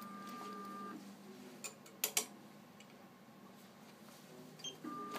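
Magic 70 engraving machine's drive motors running with a steady high whine for about a second as the table travels, followed by a few sharp clicks about two seconds in.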